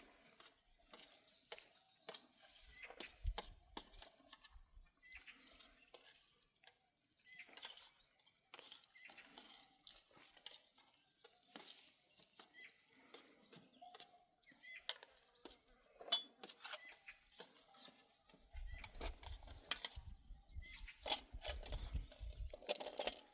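Faint, scattered small clicks, clinks and light knocks, with a stretch of low thumping near the end.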